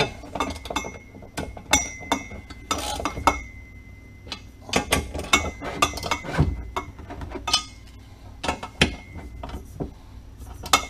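Irregular metallic clinks and knocks of a wrench and bolts against the metal base and column flange of a WEN 4208 drill press as the column bolts are tightened.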